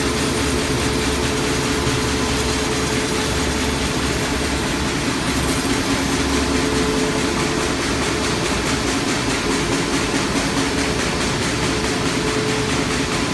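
Heidelberg V-30 web offset press running, feeding its paper web into an Oxy dry sheeter: a loud, even machine noise with a steady hum underneath.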